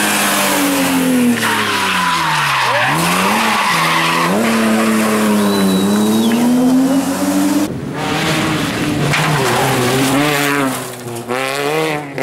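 Rally car engines revving hard, rising and falling through gear changes, with tyre squeal and skidding as the cars slide through corners. About eight seconds in the sound changes abruptly to another car whose engine note rises and falls quickly.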